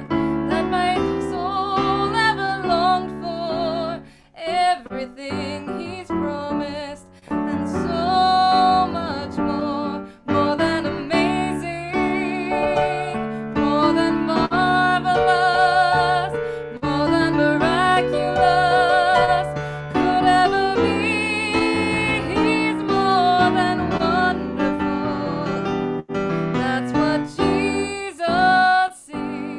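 Music: singing with a wavering vibrato over piano accompaniment, with several short pauses between phrases.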